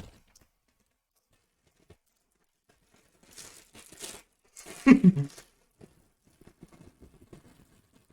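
Saltine crackers being chewed dry, with short crinkling crackles about three seconds in and a brief vocal sound from the eater about five seconds in.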